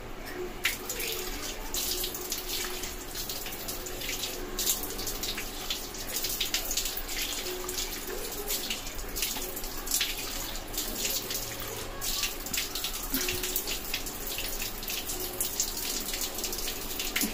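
Water running from a tap into a sink and splashing irregularly on hands held under the stream.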